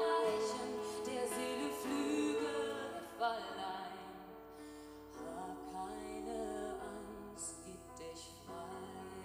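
Live music: a woman singing long, held notes to acoustic guitar and keyboard. The music drops to a softer passage about three and a half seconds in.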